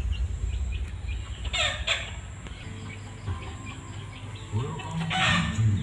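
Active 8-inch subwoofers playing bass-heavy music: a heavy low rumble for the first couple of seconds, then a stepping bass line from about four and a half seconds in. Birds chirp throughout, with two louder, harsher calls at about two and five seconds in.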